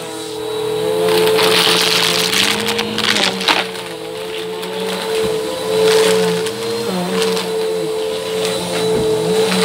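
Bissell upright vacuum cleaner running on carpet with a steady motor hum, its pitch wavering slightly, as it sucks up dry mixed beans that crack and clatter through the brush roll into the dirt bin in many sharp clicks.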